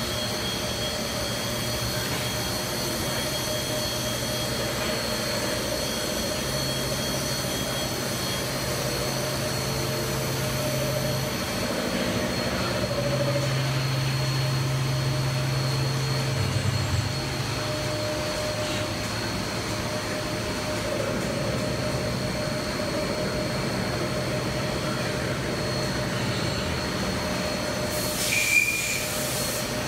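Steady drone of machine-shop machinery running, with steady whining tones over it. A low hum switches on and off in the middle, and a short hiss comes near the end.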